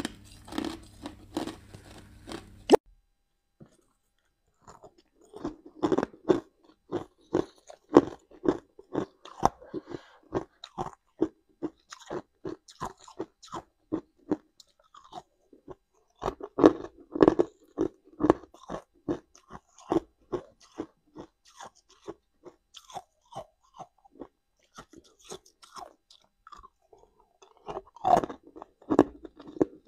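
A person biting and chewing hard ice: a run of sharp crunches, about two or three a second, with short pauses between mouthfuls and the loudest crunching in the middle and near the end.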